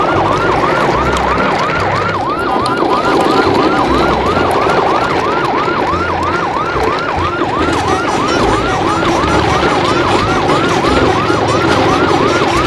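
Electronic siren in a fast yelp, its pitch sweeping up over and over at about three sweeps a second, over a steady background rumble.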